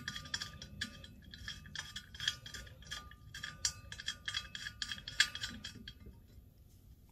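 Steel bolt spun by hand into a freshly tapped hole in a steel frame rail, test-running the new threads: rapid, irregular light metallic clicks and scrapes with a faint ring. They thin out about six seconds in as the bolt seats.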